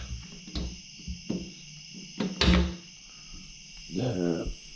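Katydids singing in a steady high trill, with a few sharp knocks and clunks of handling, the loudest about halfway. A short grunt-like vocal sound comes near the end.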